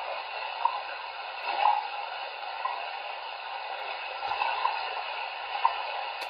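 WWV time signal on 10 MHz received in AM on a Malachite DSP SDR shortwave receiver: steady shortwave static hiss with a short tick about once a second, the station's seconds pulses.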